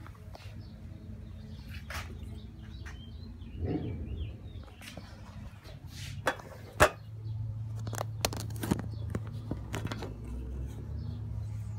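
Handling noise from a phone being moved about and set down over a workbench: scattered clicks and knocks. A steady low hum comes in about seven seconds in.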